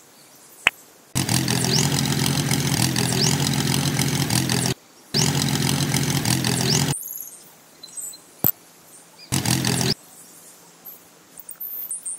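A small engine-like motor running steadily in three spells, each starting and cutting off abruptly, the longest about three and a half seconds. There is a sharp click between spells.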